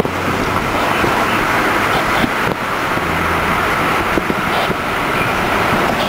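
STH-10 fire siren sounding steadily, a loud rough tone carried over low vehicle noise.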